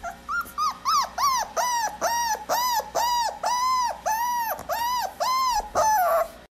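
Dog whimpering: a rapid run of short, high whines that each rise and fall, about three or four a second, ending in a longer falling whine.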